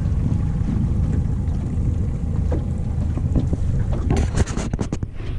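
Wind buffeting the microphone over a steady low rumble of water around a small boat, with a quick run of sharp clicks or knocks about four seconds in.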